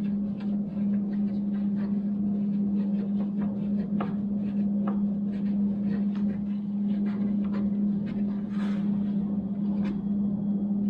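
Scattered light clicks and taps of hand tools and metal parts being handled during the table saw's reassembly, over a steady low hum.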